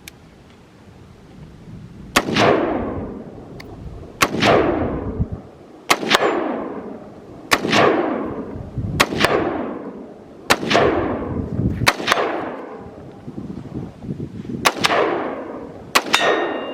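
A gun firing a slow string of about nine shots, roughly a second and a half apart, starting about two seconds in. Each sharp crack is followed by a long echo dying away.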